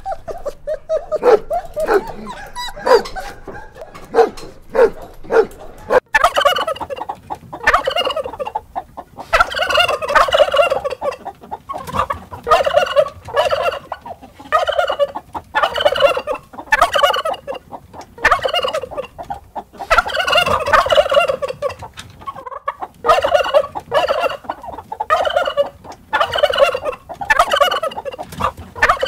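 Dogs barking in short, quick calls for the first six seconds or so. After an abrupt change, a domestic tom turkey gobbles over and over, each gobble about a second long with a pause of a second or less between them.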